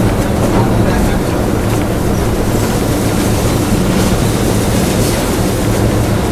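WDM3 diesel-electric locomotive running at speed, its engine drone heard from the cab together with wheel and rail noise, with a few faint clicks over the rails.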